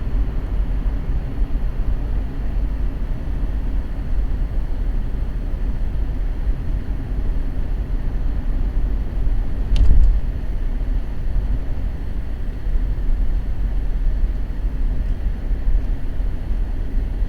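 Steady low rumble of a car driving on a snowy road, with a single brief thump about ten seconds in.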